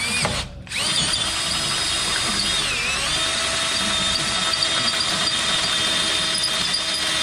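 Cordless drill with a twist bit boring a hole up through a steel push plate and truck frame. It stops briefly just under a second in, then runs steadily. Its whine dips in pitch about three seconds in as the bit loads up, then settles slightly lower.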